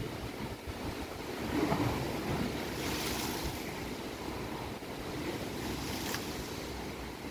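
Wind-driven lake waves breaking, with strong wind rumbling on the microphone. A wave crashes about three seconds in and another splashes briefly near six seconds.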